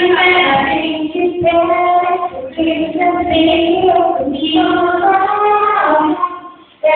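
A child singing, holding long steady notes in phrases with short breaks between them; the singing stops briefly near the end.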